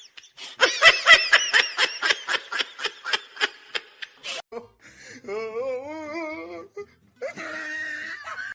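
A person laughing hard in a rapid run of short bursts for about four seconds, followed by a drawn-out wavering vocal sound and a shorter one near the end.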